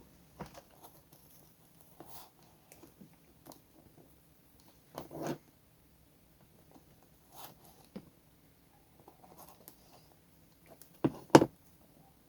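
Faux leather and hand tools being handled at a workbench: scattered light scrapes, rustles and clicks, with a few sharp knocks about eleven seconds in.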